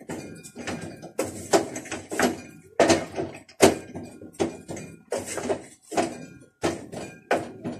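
Ugali dough being stirred and pressed in a metal pot, a fast, uneven run of knocks and thuds, about three a second, as the stiffening maize-meal dough is worked against the pot.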